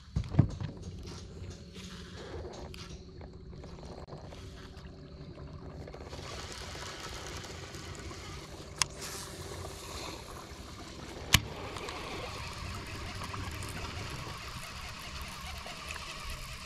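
Fishing boat moving slowly on calm water: water trickling and lapping against the hull over a steady low hum. A few sharp clicks of fishing gear cut through, one just under a second in and two more near nine and eleven seconds in.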